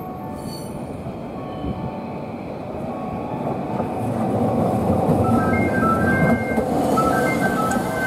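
Toei 8800-series tram approaching around a curve and passing close by, its running rumble growing louder about halfway through. Brief high squeals come and go as its wheels take the curve.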